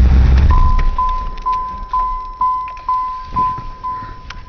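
Car engine shutting off about half a second in, followed by the car's warning chime: one steady tone repeating about twice a second. A few knocks from the door being opened come in near the end.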